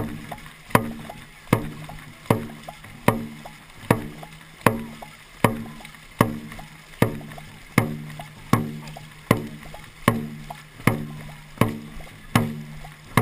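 Dragon boat drum beaten in a steady race-pace rhythm, about 1.3 strikes a second to set the paddlers' stroke. Each hit is a sharp knock followed by a short, low ring that dies away before the next.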